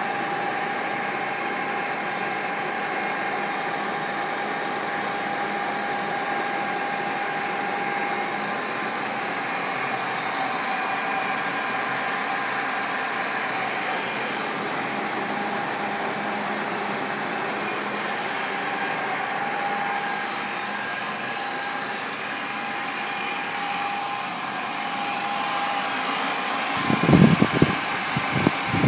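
Deckel FP2NC CNC milling machine running with a steady mechanical whine that shifts slightly in pitch a few times. Loud, irregular low rumbling thumps come in near the end.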